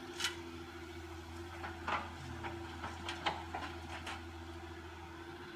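Caterpillar 315C excavator's diesel engine running steadily with a constant hum, while several sharp knocks sound as the bucket dumps soil and stones into a dump truck's bed.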